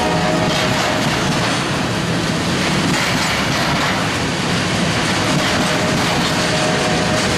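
Loaded rack cars of a CSX continuous welded rail train rolling past: the steady rumble and clatter of steel wheels on the rails. A faint thin tone rides over it near the start and again near the end.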